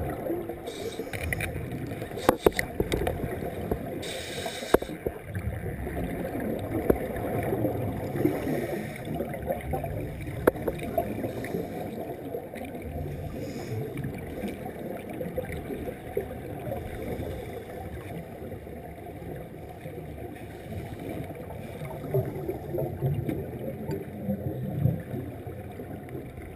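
Underwater recording of scuba exhaust bubbles gurgling and crackling, with a few sharp clicks and a brief hiss about four seconds in.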